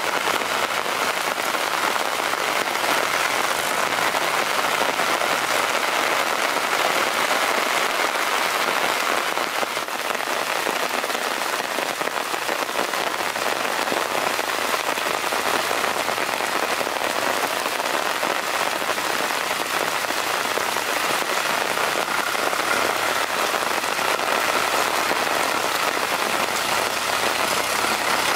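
Steady heavy rain hissing down onto muddy ground. A tractor's diesel engine hums faintly underneath and becomes plainer near the end.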